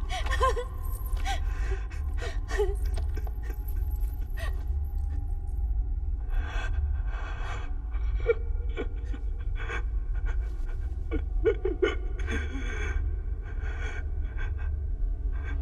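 A person breathing heavily with gasps and short breathy, whimpering sounds, over a steady low rumble.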